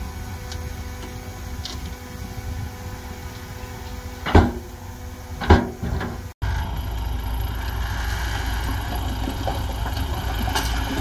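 Heavy earthmoving machinery running with a steady low rumble, with two loud knocks a little over a second apart near the middle. The sound then breaks off abruptly and picks up again as a louder, steady machine noise.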